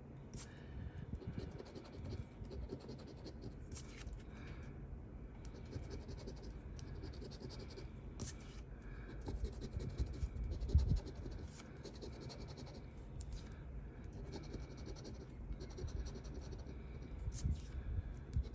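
Scraping the coating off a lottery scratch-off ticket in quick, repeated strokes, with a few sharper ticks along the way.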